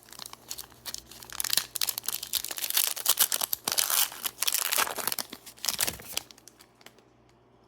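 Foil Pokémon booster pack wrapper being torn open and crinkled, a dense run of crackling and rustling that stops about six seconds in.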